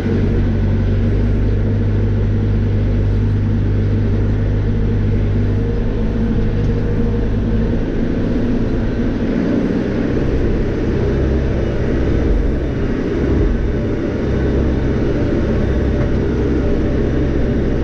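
Diesel engine of a Cat 430E backhoe loader running steadily, heard from inside the cab, with its note changing about eight seconds in.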